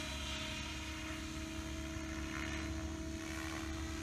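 Align T-Rex 700E electric RC helicopter in flight, its rotor and motor making a steady pitched whine at a raised idle-up headspeed.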